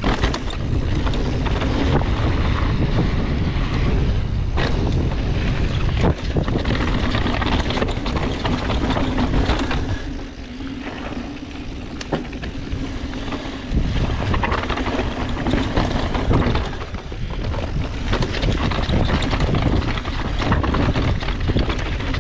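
Specialized Enduro full-suspension mountain bike riding down a dry dirt and rock trail: a steady rush of wind on the camera microphone with tyre rumble, and occasional sharp knocks as the wheels strike rocks. It eases off about ten seconds in and picks up again about four seconds later.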